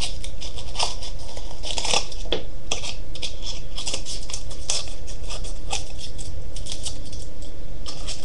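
Scissors snipping black paper in many short, irregular cuts.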